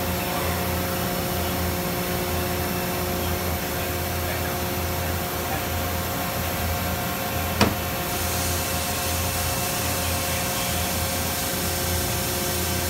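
Horizontal CNC machine running, a steady hum with several held tones as its table travels under power. A single sharp click comes a little past halfway, and a higher hiss joins just after.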